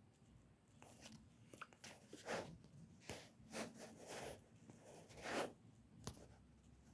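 Faint handling noises: a handful of short rustles or scrapes, then a sharp click near the end.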